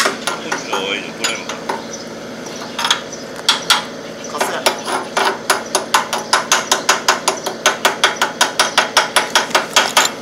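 Rapid, evenly spaced hammer taps on the metal of a tracked crawler carrier, about four strikes a second. They pause for a couple of seconds early on, then resume steadily.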